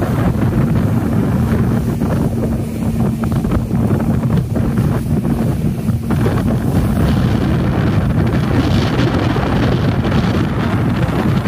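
Twin Yamaha 250 hp four-stroke outboard motors running steadily at cruising speed, pushing a fully loaded passenger boat. Heavy wind buffets the microphone over the engine drone.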